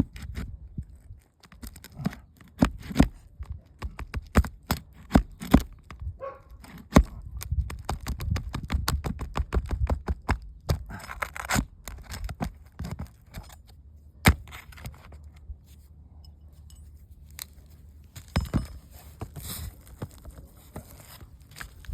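Irregular sharp taps, knocks and scraping of hand tools against roof shingles and their nails as a shingle is pried up and its fasteners pulled; the knocks are dense for the first dozen seconds, then thin out.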